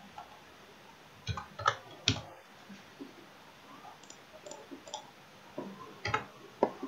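Computer keyboard keys and mouse buttons clicking in scattered small groups with short pauses between.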